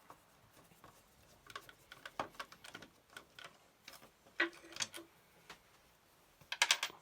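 Irregular small clicks and ticks of a screwdriver and screws being worked out of a dot-matrix printer's chassis, in scattered clusters with a sharper group near the end.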